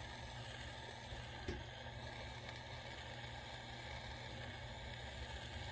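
Jeweler's soldering torch flame hissing steadily as it heats the ring joint to flow the gold solder, with one small tap about a second and a half in.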